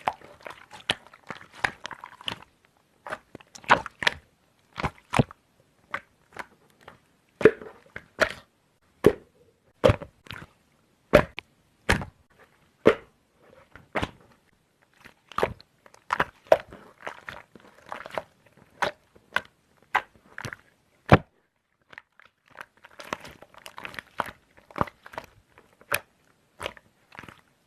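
Hands squeezing and pressing slime, making sharp, irregular clicks and pops, with a soft crackle between them in places.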